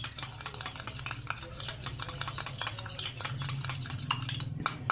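Spoon stirring liquid in a small glass, clinking rapidly and steadily against the sides, and easing off near the end.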